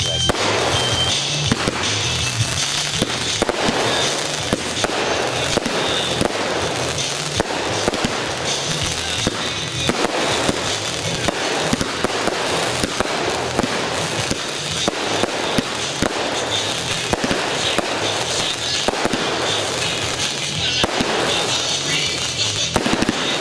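Consumer fireworks going off in a rapid barrage: shots launching, with dense crackling and many sharp pops in quick succession.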